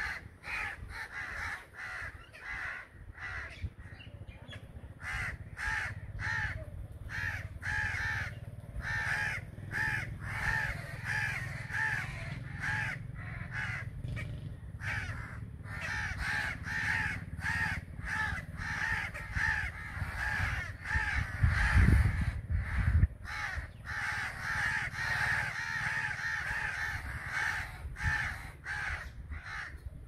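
A large flock of crows cawing continuously, many calls overlapping into a dense chorus. About two-thirds of the way through, a brief low rumble is the loudest sound.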